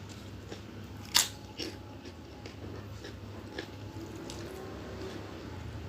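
A person biting and chewing food close to the microphone, with a few short crunchy clicks, the loudest about a second in.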